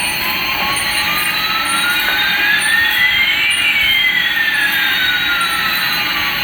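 Jet-engine sound effect: a steady rushing hiss with one whine gliding slowly up in pitch while another glides down, the two crossing about halfway through.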